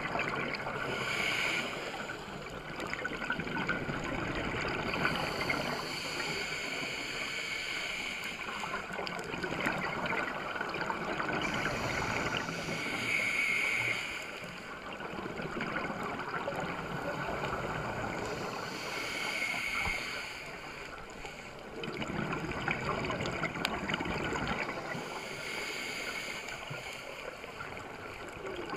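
Scuba diver breathing through a regulator underwater: a hiss on each inhale and a rush of bubbles on each exhale, in a slow cycle repeating every several seconds.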